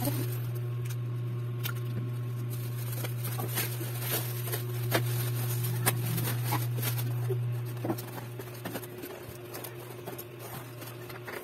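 Plastic stretch wrap crinkling and crackling in short irregular bursts as it is pulled off a cardboard box, over a steady low hum.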